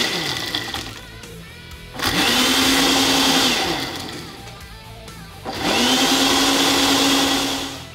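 Countertop blender blending a green smoothie in pulses. The motor winds down just after the start, then runs twice more for about two seconds each, rising in pitch as it spins up and falling as it stops.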